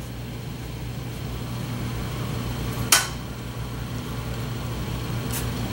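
A steady low hum with a single sharp metallic click about three seconds in, as a T-handle socket driver is hand-turned to snug the power-valve bolts in an aluminium two-stroke cylinder casting.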